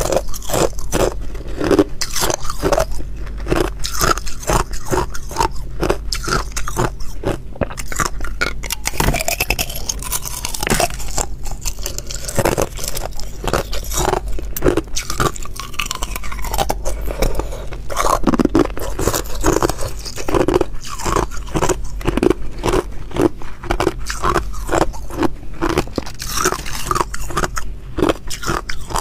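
Thin sheets of ice being bitten and chewed close to the microphone: a rapid, irregular run of crisp, brittle crunches.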